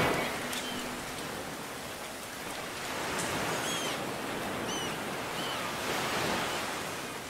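Steady rushing water noise, with a few short high chirps a few seconds in.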